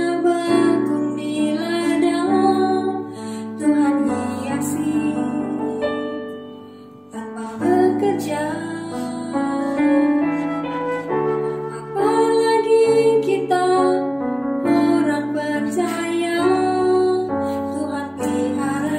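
A woman singing an Indonesian worship song in Indonesian, with piano accompaniment.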